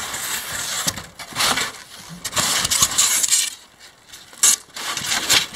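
Styrofoam sheets and blocks rubbing and scraping against each other as they are pulled about and sorted by hand, in a run of irregular scraping bursts.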